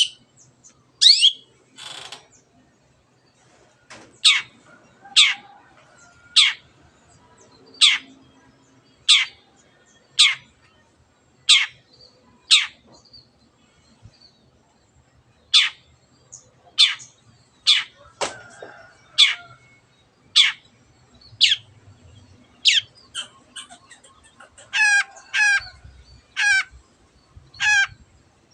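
Long-tailed shrike (cendet) calling: a series of sharp, steeply falling whistled notes about one a second, with a pause of a few seconds midway. Near the end come four harsher notes with a rapid warble.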